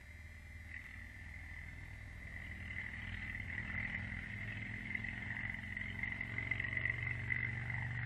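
A steady buzzing trill from a wild animal at one high pitch, swelling louder over several seconds, with a low rumble underneath that grows in the second half.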